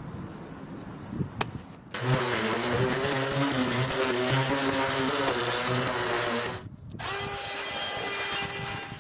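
A handheld electric power tool starts about two seconds in and runs for several seconds with a wavering pitch, as if working against wood. It stops briefly, then runs again near the end at a steadier, higher pitch.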